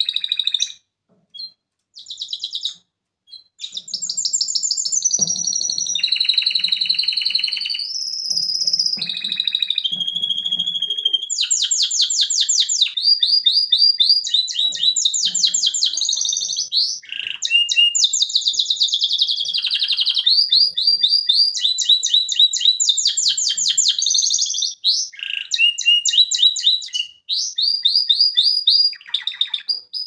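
Male canary singing a long song of fast trills, each a run of rapidly repeated high notes that shifts to a new pitch every second or two. Only a few short notes break a brief pause near the start.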